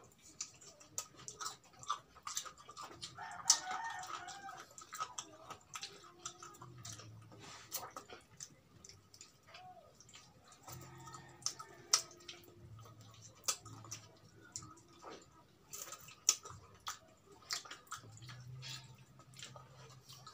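Close-miked eating sounds of two people eating fried chicken with their hands: lip smacks, chewing and wet mouth clicks in many short, sharp ticks, with a short pitched sound about three and a half seconds in.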